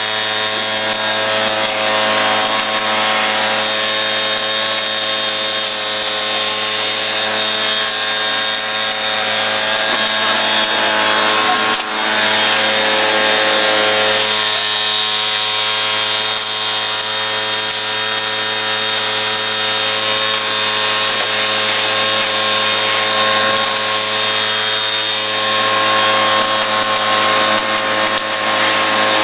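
Handheld mini cotton picker running steadily as it is worked through cotton plants: a constant motor hum with several steady tones over a hiss, dipping briefly about twelve seconds in.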